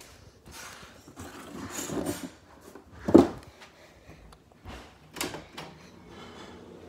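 Handling noises: rustling and a few knocks, the loudest a sharp knock about three seconds in.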